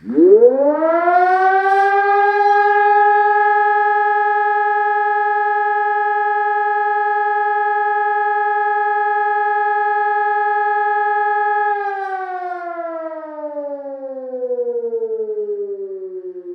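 Civil-defence siren sounding for a siren test. It winds up sharply to a steady, loud wailing tone held for about ten seconds, then winds down with its pitch falling slowly.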